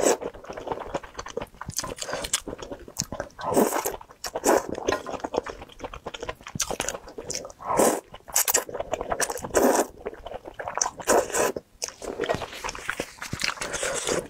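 A woman eating spicy noodle soup close to a clip-on microphone: repeated noodle slurps and wet chewing.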